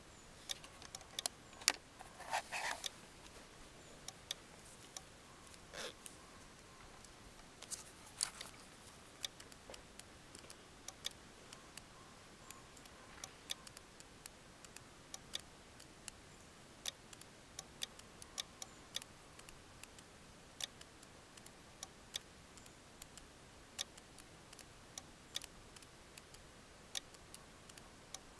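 Sparse, irregular small clicks from a hand working the controls of a portable QRP ham radio transceiver, with a short rustle about two seconds in.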